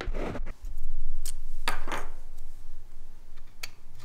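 Handling noises and a few sharp clicks as a memory card is pushed into card slots, first in a laptop and then in the 3D printer. A rustle at the start, a louder stretch of rumbling handling about a second in, and a distinct click near the end.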